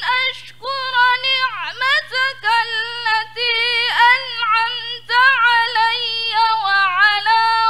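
A woman reciting the Qur'an in murattal style: a solo chanted voice moving through held, ornamented notes in phrases, with short breaks between them.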